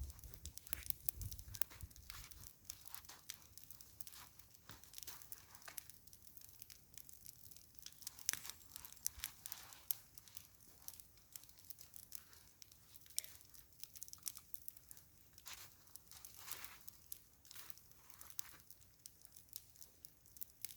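Faint, irregular crunching and crackling, a scatter of short clicks with no steady rhythm.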